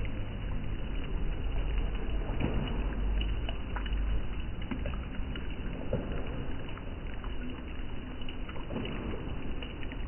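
Flowing river water: a steady rush with a low rumble underneath and small scattered splashes.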